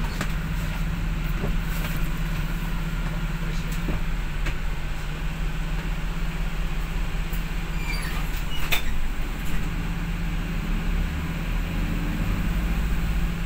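Bus engine running steadily while the bus is under way, heard from inside the cabin, with a constant low hum and a few light clicks and rattles.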